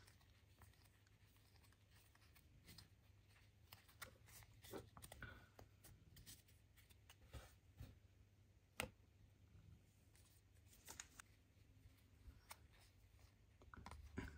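Faint handling of trading cards: cards sliding and flicking against one another as a stack is sorted through by hand, in many small scattered clicks and scrapes, with one sharper tap a little after the middle.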